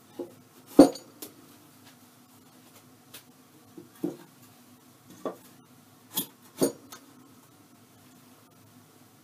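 Irregular wood-on-wood knocks as a squared ash bench leg is handled and its tenon is set into a drilled mortise in the slab bench top. The loudest knock comes about a second in, and two more come close together near the end.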